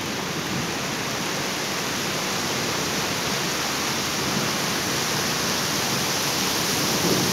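Heavy rain pouring down: a steady, even hiss that slowly grows a little louder.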